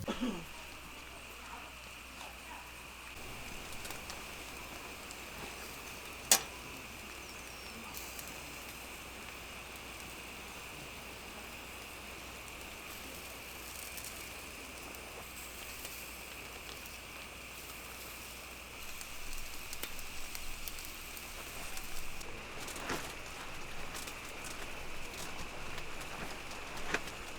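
Chicken skewers sizzling on a grill: a steady hiss with a sharp pop about six seconds in, turning more crackly in the last third.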